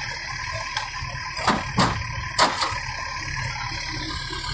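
Excavator diesel engine running steadily while the bucket empties a load of soil into a small truck's bed, with three sharp knocks within about a second, starting about a second and a half in.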